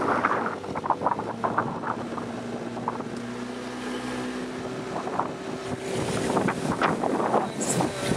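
A boat's motor running steadily with a low hum, wind buffeting the microphone, and scattered short knocks.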